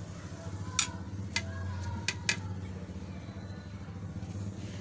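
Four sharp clicks in the first two and a half seconds, the last two close together, over a steady low hum.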